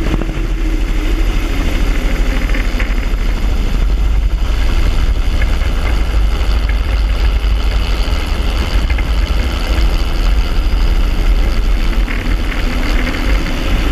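Helicopter in low flight, heard from a camera mounted on its outside: steady engine and rotor noise mixed with heavy wind rush, with a humming tone that wavers in pitch, plainest near the start and again near the end.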